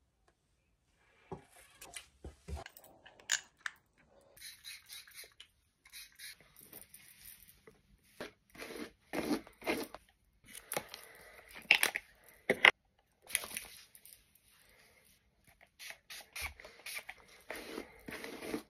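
Close handling sounds of hands with small objects such as rings and a plastic tube of hair product: irregular clicks, scrapes and rustles, some louder knocks around the middle.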